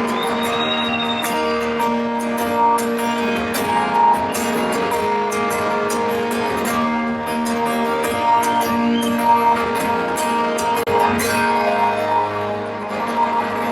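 Guitar-led pop-rock music with a steady drumbeat and sustained chords.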